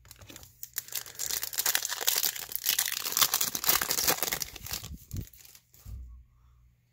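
Foil wrapper of a baseball card pack being torn open and crinkled by hand: a run of crackling and tearing that builds over the first couple of seconds, is loudest in the middle and stops about six seconds in.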